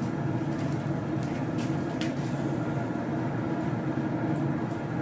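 A Camp Chef pellet smoker's fan running with a steady low hum, with a few faint ticks in the first couple of seconds.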